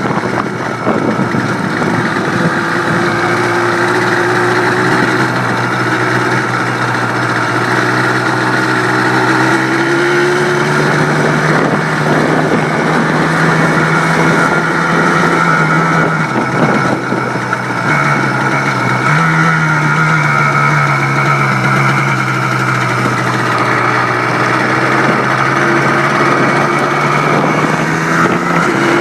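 A freshly rebuilt Blaster's two-stroke engine running on its test run, at a mostly steady speed with small rises and dips in pitch.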